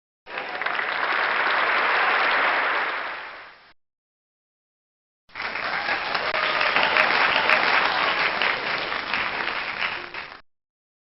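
Crowd applause, two separate rounds: the first lasts about three seconds and fades away; after a short silence a second round with more distinct individual claps runs about five seconds and stops.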